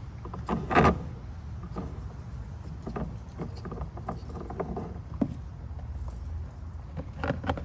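Scattered clicks and knocks of hands and tools working at a mini excavator's fuel filter as it comes off, with one louder knock about a second in, over a low steady rumble.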